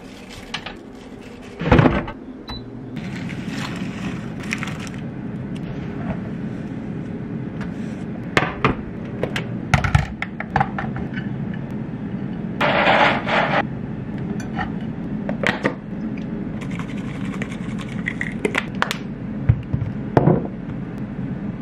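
Kitchen cooking sounds: a loud knock about two seconds in as the air fryer basket goes in, then the air fryer's fan running with a steady hum. Over it come clatters of a plate and cutting board, a rattling shake around the middle, and a spice shaker being shaken over a raw tilapia fillet near the end.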